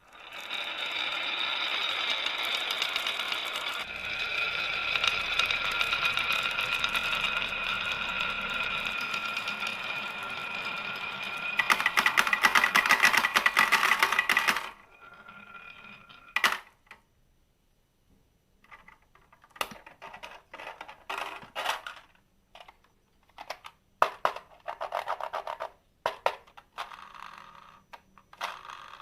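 Marbles rolling down a marble run track with a ringing tone, growing into a loud dense clatter about twelve seconds in that cuts off suddenly, followed by scattered clicks and knocks as marbles drop and hit the track.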